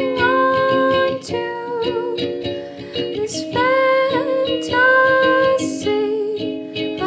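A Nuke 3D-printed ukulele being plucked while a woman sings long, held notes with a slight waver over it.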